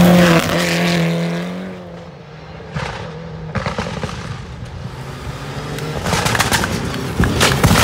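A Mitsubishi Lancer Evolution rally car passing close at speed on a gravel stage, its engine note loud at first and fading away over about two seconds. A few sharp cracks follow in the quieter stretch, then the engine of the next rally car grows louder toward the end as it approaches.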